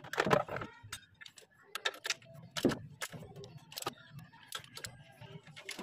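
Irregular metallic clicks, taps and knocks of a screwdriver working a coolant hose clamp among engine-bay parts. The loudest knock comes just after the start, with another strong one near the middle.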